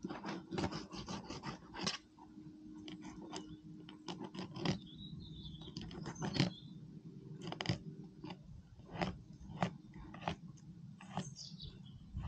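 Fillet knife cutting along a black bream's backbone and rib cage: irregular crunching, scraping clicks as the blade slices through the fish's bones and flesh.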